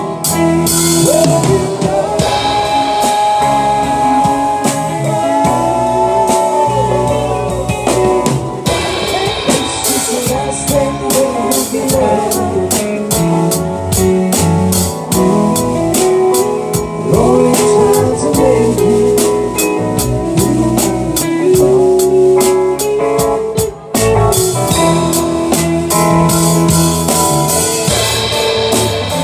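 Live band playing a song with a drum kit and electric guitars, a steady beat under a melodic lead line that bends up and down in pitch.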